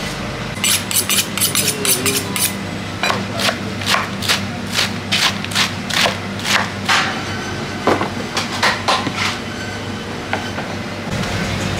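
Knife chopping romaine lettuce on a plastic cutting board: a fast run of chops starting about half a second in, then slower, steady chops from about three seconds that stop around nine seconds, over a steady kitchen hum.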